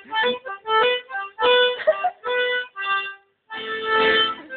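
Accordion played in short separate chords, with a brief break about three seconds in and then a longer held chord near the end.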